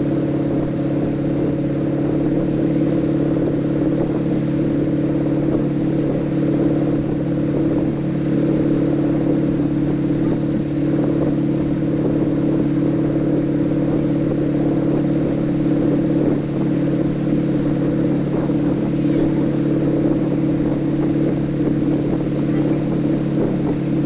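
Wake boat's inboard engine running steadily at towing speed, a constant drone that holds its pitch throughout.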